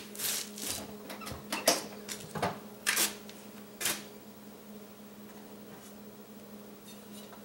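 Clicks and knocks of a metal cabinet smoker's door being unlatched and swung open, a string of sharp knocks in the first four seconds, then quieter, with a low steady hum underneath.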